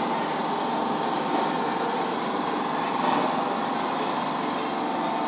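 Small electric motor of the conveyor rig running steadily, a constant whine over a mechanical whir.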